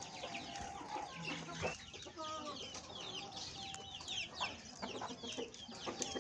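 Aviary bird chorus: a dense, continuous run of quick, high chirps from many small caged birds, with hens clucking among them.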